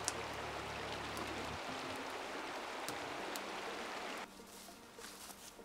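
Steady rushing of a river or rapids, with a few sharp pops from a wood campfire. The rushing drops away abruptly about four seconds in.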